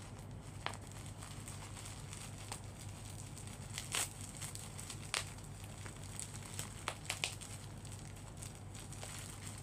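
Plastic packaging around a pair of eyeglasses crinkling and crackling as it is handled and unwrapped. It comes in scattered sharp crackles, a few of them louder, about four and five seconds in and again around seven seconds.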